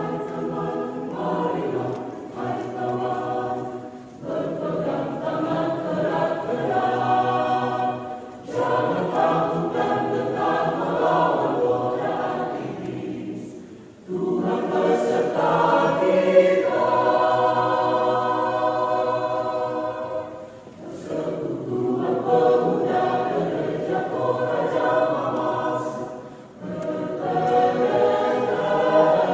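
Mixed choir of women's and men's voices singing together, in phrases of several seconds with short pauses between them.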